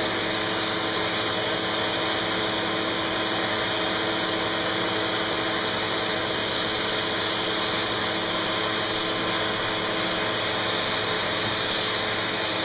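Vacuum cleaner running steadily, a constant motor hum with a whine in it, its nozzle held to a cat's head and fur.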